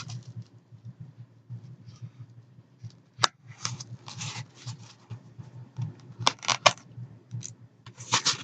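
Packaging being cut and worked open with a hand cutter: short scraping, slicing strokes through tape and cardboard with rustling and clicks, and a sharp snap about three seconds in.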